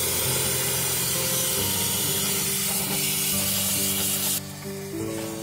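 Gas torch flame hissing steadily as it melts silver in a crucible, cutting off suddenly about four seconds in, over background music.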